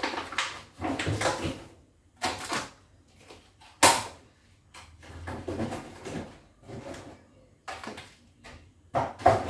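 Groceries being put away in an open refrigerator: plastic-wrapped packs and containers knocking and rustling against the shelves, with one sharp knock about four seconds in.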